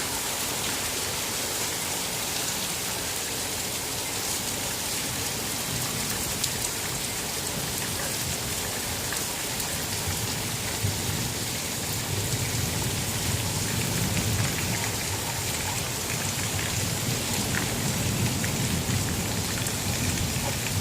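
Steady rain falling during a thunderstorm, with a low, continuous rumble of thunder that builds about halfway through.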